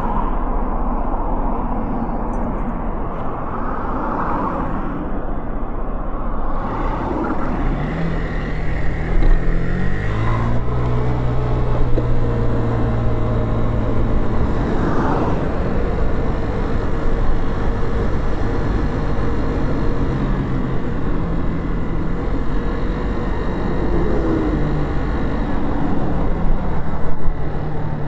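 Motorcycle heard from on board. Near the start cars pass close by while the bike waits. From about eight seconds in it pulls away, its engine pitch climbing in steps as it shifts up through the gears, then it runs steadily with road and wind noise.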